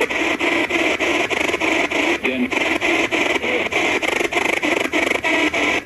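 Spirit box sweeping through radio stations: hissing static chopped into short pieces several times a second, with a brief snatch of broadcast sound about two seconds in.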